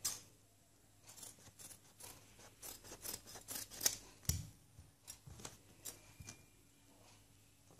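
Scissors cutting fabric in a run of short snips, busiest about three to four seconds in, as leaf-shaped pieces are cut out.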